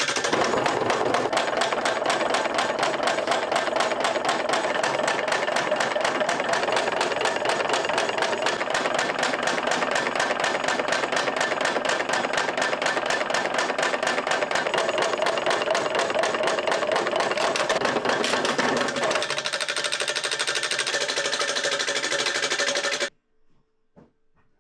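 Rapid, even hammering of metal on a copper pan, blow after blow with a ringing tone, stopping abruptly near the end.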